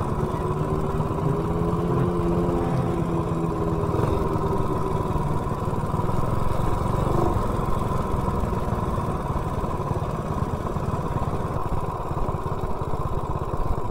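Coleman mini bike's 196cc single-cylinder engine running steadily, with a higher, smoother engine tone over it for the first few seconds.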